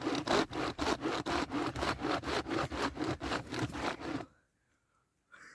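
Hand chainsaw being pulled back and forth through a tree trunk: a fast, even rasping rhythm of about four to five strokes a second that stops abruptly about four seconds in.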